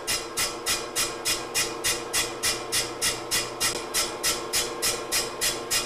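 Rels model 2000 brake lathe running with its spindle motor on, turning a brake drum before the cutter touches it: a steady hum under an even, hissing swish that repeats about three and a half times a second.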